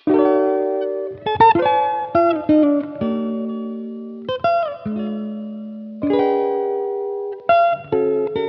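Background music: plucked guitar chords, a new chord struck every second or so and left to ring and slowly fade.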